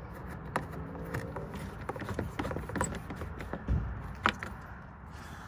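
Hand screwdriver turning a screw into the plastic door card trim under the armrest of a BMW E46 door: scattered light clicks and scrapes, with a few sharper clicks.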